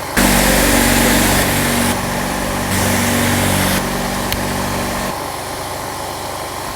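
Electronically altered sneeze sound effect: a buzzing drone that shifts in steps about every second and drops quieter for its last part, with a single click about four seconds in.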